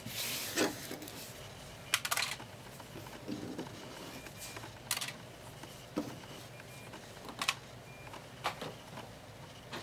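Scattered light clicks, taps and rustles of hands handling small objects on a table, irregularly spaced about a second apart.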